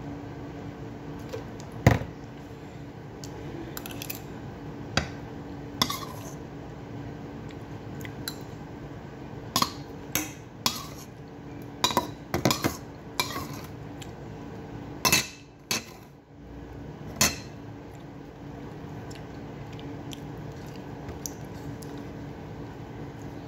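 Scattered clinks and taps of a metal spoon against a dinner plate while eating, over a steady background hum.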